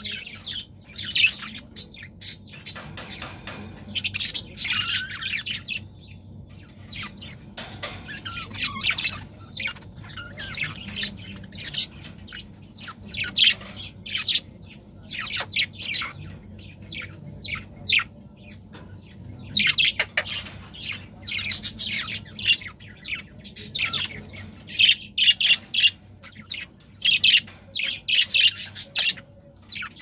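Budgerigars chattering and chirping in a steady stream of short, quick, high calls, with a few harsher squawks.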